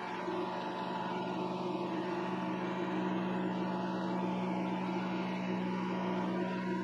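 Vevor MX400 mini lathe running with its chuck spinning: a steady motor and gear whine that grows a little stronger about three seconds in.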